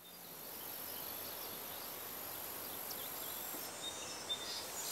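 Countryside ambience fading in: a steady high insect drone over a soft noise bed, with a few faint bird chirps after the middle.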